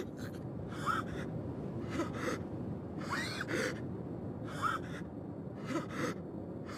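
A man gasping for breath again and again, about nine short ragged gasps at uneven intervals, in the sweating terror of someone about to be stunned.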